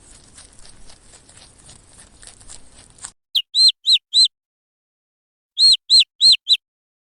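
A bird chirping: two quick runs of four short, high chirps, about three a second, with silence between the runs. Before the chirps come about three seconds of faint crackling.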